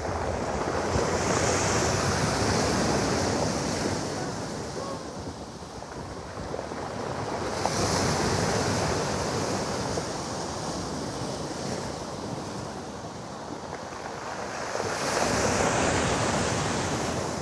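Storm surf breaking on a pebble beach: three waves surge in, near the start, about eight seconds in and about fifteen seconds in, each with a rush of hiss.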